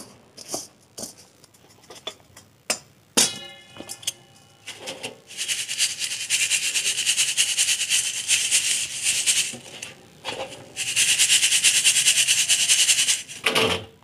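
Metal pestle tapping and grinding burnt tactile-switch pieces in an iron bowl: scattered clicks, and a single ringing metal strike about three seconds in. Then two long stretches of dense, steady rattling, from about five seconds and again from about eleven seconds, as the small ground metal pieces are shaken to sieve out the ash.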